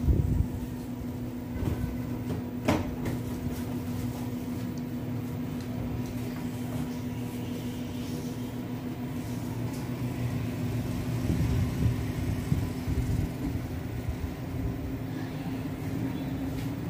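Countertop convection oven (turbo broiler) running with a steady motor hum, with a sharp click just at the start and another about three seconds in.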